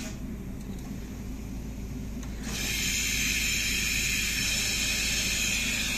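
Compressed air hissing from a semi-trailer's air brake system: it starts suddenly about two and a half seconds in and then holds steady and loud. Under it, the tractor unit's diesel engine idles with a low, even hum.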